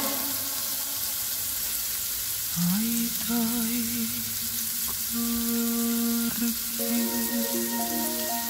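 Carrot and onion strips sizzling as they fry in an oiled nonstick pan, a steady hiss. About two and a half seconds in, music with a held, wavering melody comes in over it.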